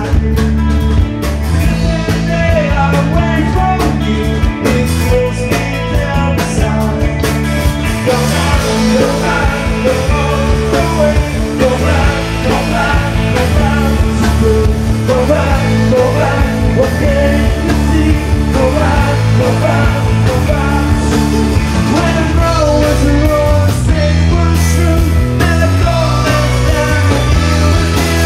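Rock music with singing over bass guitar and drums, playing continuously.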